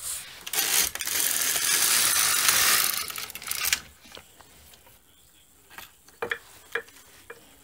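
LK150 knitting machine carriage pushed across the needle bed to knit a row, a loud sliding rattle lasting about three seconds. A few light clicks follow.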